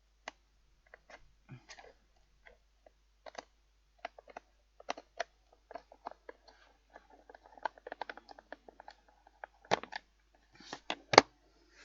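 An ordinary screwdriver working screws into a fan heater's plastic casing: irregular small clicks and scraping as the blade slips and turns in triangle-headed screws. Two sharper knocks come near the end.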